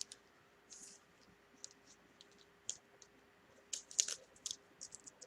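Faint, scattered clicks and scratchy rustles of trading cards being handled, with a cluster of quick clicks about four seconds in.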